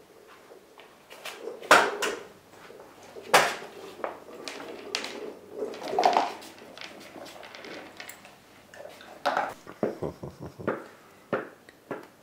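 A Gordon Setter puppy moving about and playing with a toy on a wooden floor: irregular clicks and knocks, the loudest about 2, 3½ and 6 seconds in, then a quick run of knocks near the end.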